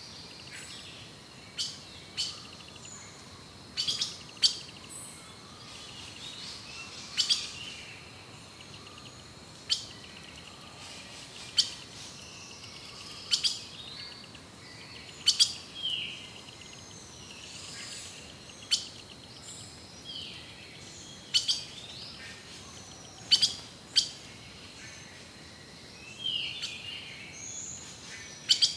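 Rainforest birds calling: loud, sharp chip notes about every two seconds, sometimes in quick pairs, over softer chirps and whistled calls, with a steady high tone underneath.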